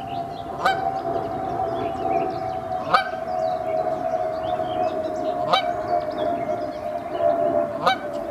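Canada goose family on the water: many short high peeps from the goslings, and a sharp rising call about every two and a half seconds. A steady droning tone sits underneath throughout, slowly falling in pitch.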